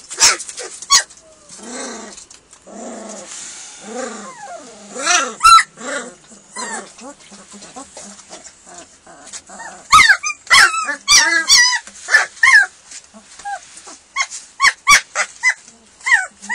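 A litter of German Shepherd puppies whining, yipping and growling, with a loud, dense flurry of yips about ten seconds in. The calls are those of hungry puppies waiting to be fed.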